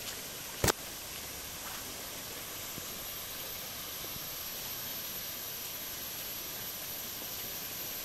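Steady rushing of water from the stream and the waterfall ahead, an even hiss with no changes. About a second in there is a single sharp click.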